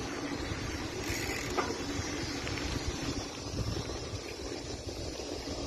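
Steady rumble of wind on the microphone and a bicycle's running noise as it rides along, with a light click about a second and a half in.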